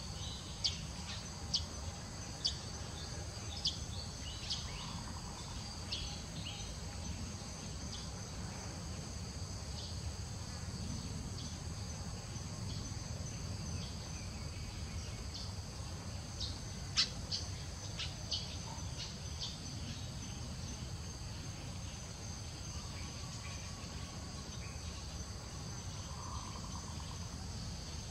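Steady high-pitched insect chorus, with short sharp ticks scattered through it, several near the start and a cluster about two-thirds of the way in. A low rumble lies underneath.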